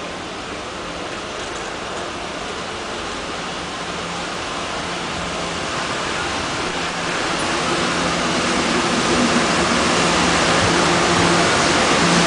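TEMU1000 Taroko Express tilting electric train running into an underground station platform: a rushing rumble that grows steadily louder as the train comes alongside, with a faint steady hum under it.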